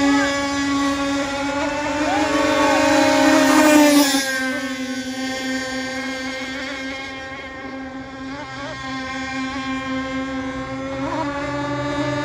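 High-speed RC racing boats running flat out, their motors giving a steady high-pitched buzz. The sound is loudest about four seconds in as a boat passes close, drops a little in pitch and fades, then builds again near the end as boats come round.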